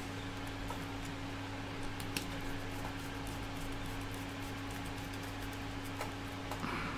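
Steady low hum of room noise, like a fan, with a couple of faint small clicks from a hand screwdriver driving a screw into a 3D-printed plastic part.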